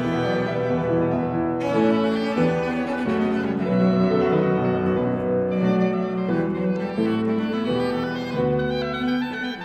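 Oboe, cello and Fazioli grand piano playing classical chamber music together: bowed cello lines over piano, with notes moving about every half second. The oboe drops out partway through, leaving cello and piano.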